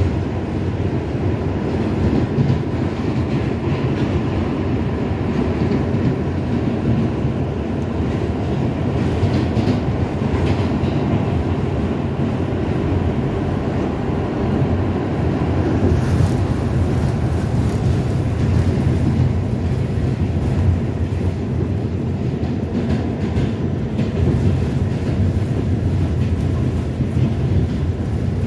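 Moving New York City subway car heard from inside: a steady low rumble of the wheels running on the rails, with no pauses or stops.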